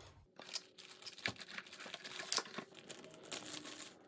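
Clear plastic bag crinkling and rustling as a set of T-handle Allen keys is taken from the packing box and out of the bag, with a few small sharp clicks among the rustles.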